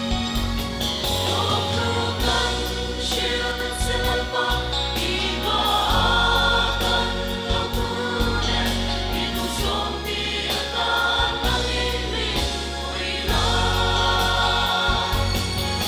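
A group of singers performing a gospel song in harmony, with instrumental accompaniment carrying a steady, held bass line.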